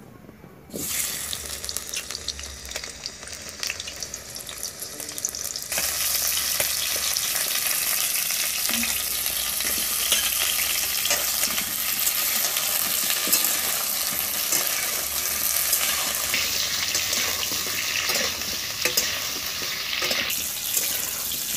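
Potato pieces sizzling as they fry in hot oil in a kadhai, with a metal spatula scraping and clicking against the pan as they are stirred. The sizzle starts abruptly about a second in and grows louder about six seconds in.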